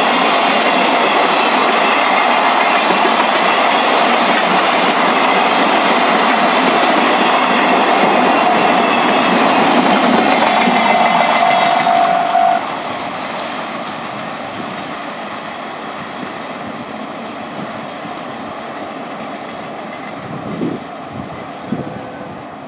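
Freight train of two-axle Wamu 80000 covered wagons running past, wheels clacking over the rail joints. About twelve seconds in the last wagon goes by: the sound drops suddenly and fades as the train recedes.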